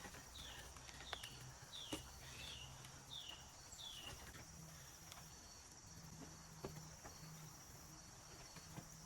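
Faint woodland ambience: a bird calls a series of six short downslurred notes, evenly spaced over the first four seconds, over a steady high insect drone.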